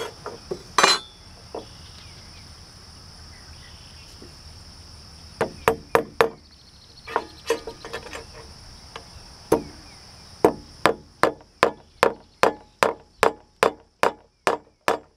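Hammer driving a nail through a metal joist-hanger bracket into a wooden joist, tacking the bracket in place with a single nail: a few scattered taps, then from about ten seconds in a steady run of blows, about two and a half a second.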